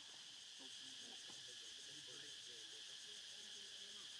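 A faint, steady, high-pitched insect chorus.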